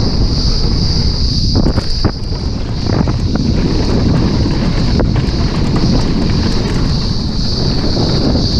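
Mountain bike descending a dirt trail at speed, heard from a bike-mounted action camera: wind buffeting the microphone and tyres rumbling over the dirt, with a steady high buzz above. Sharp knocks and rattles of the bike over bumps come several times in the first few seconds.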